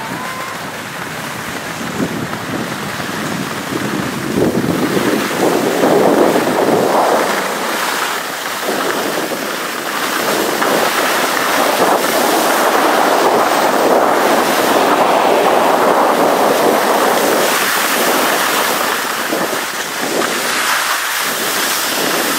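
Skis sliding and scraping over snow while skiing downhill, heard with air rushing past the microphone as one steady rushing noise that grows louder over the first few seconds.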